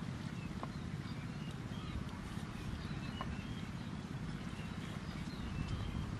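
A knife slicing raw liver on a wooden cutting board, with a few soft taps of the blade on the board, over a low steady rumble. Small birds chirp in the background.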